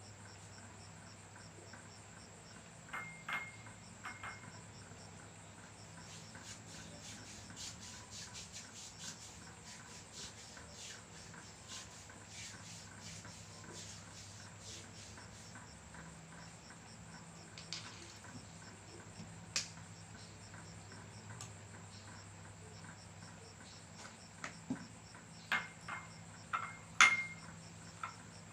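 Insects trilling steadily in the background over a low hum, with a run of light clicks in the middle and scattered sharp taps or slaps, the loudest near the end.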